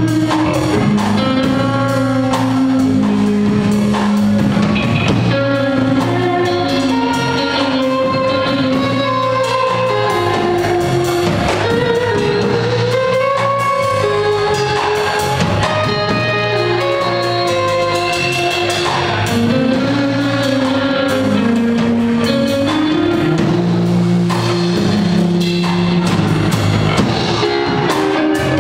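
Live rock band playing: electric guitar over a drum kit, continuous and steady in level.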